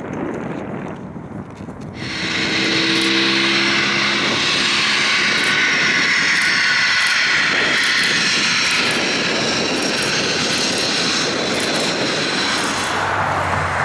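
Boeing 767-277 jet engines running loud and steady as the airliner taxis, with a high whine over the rush. The engine noise jumps up suddenly about two seconds in.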